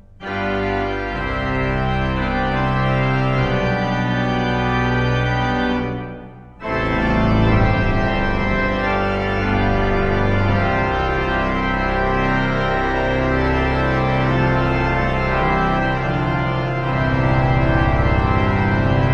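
Pipe organ playing loud, full sustained chords. The sound breaks off twice, right at the start and again about six seconds in, and the hall's reverberation dies away for a moment before the chords come back in.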